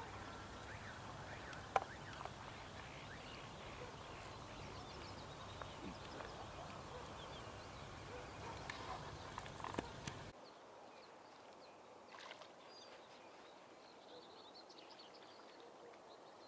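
Faint outdoor ambience by a pond, with birds chirping and calling over a steady background hiss, and a single sharp click about two seconds in. About ten seconds in the sound changes abruptly to a quieter background with scattered chirps.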